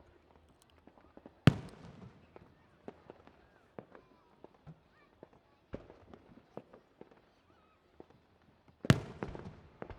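Aerial fireworks bursting: two loud booms, one about a second and a half in and one near the end, each trailing off in a rumble, with smaller pops and crackles between them.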